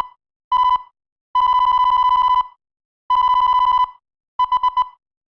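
Electronic beeps at one steady pitch: a short beep, two long ones, then four quick ones in a row.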